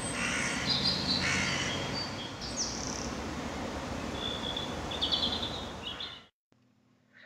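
Outdoor woodland sound: several bird calls, short high notes and chirps, over a steady hiss, cutting off abruptly about six seconds in.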